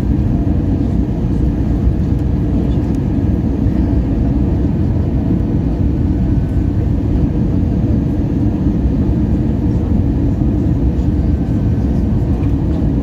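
Steady rumble of engine and airflow noise heard inside the cabin of an Airbus A320 in flight on its approach to land.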